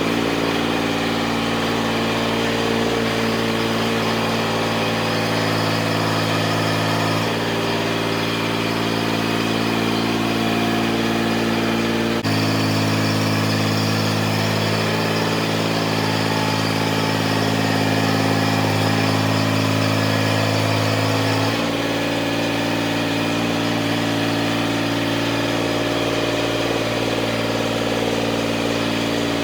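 Tractor engine running steadily, its speed stepping up about twelve seconds in and back down about nine seconds later.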